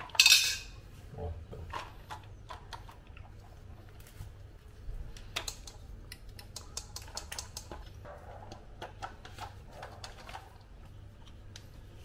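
Plastic-and-metal washing-machine stand being assembled: scattered clicks and clinks as a metal bar is slid into and fitted against the plastic corner pieces. A louder scraping clatter comes just after the start.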